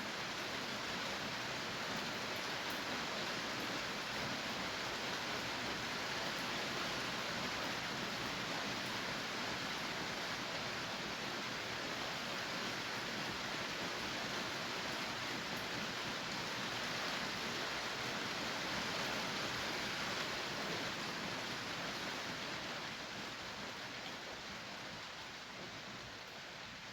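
Steady rain falling, an even hiss, growing somewhat quieter over the last few seconds.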